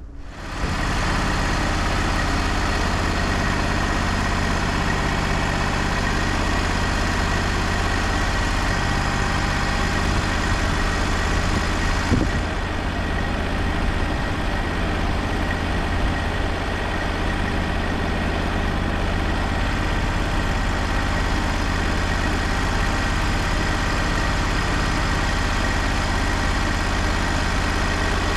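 Wood-Mizer LT35 portable band sawmill running steadily. It comes up sharply about half a second in, then holds at a constant working speed with a low hum.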